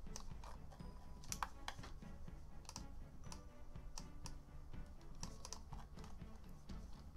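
Computer mouse and keyboard clicks: about a dozen sharp, irregularly spaced clicks over a low background hum.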